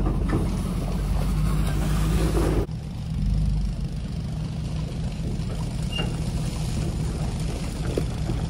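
Pickup truck engine running under load as it tows a loaded dump trailer up an icy, snow-packed slope, with tyre noise on the ice. The noisier first part stops abruptly about two and a half seconds in, leaving a steadier engine sound.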